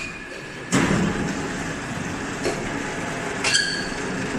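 Steady machinery noise from a factory workshop, starting abruptly under a second in, with a few light metal knocks.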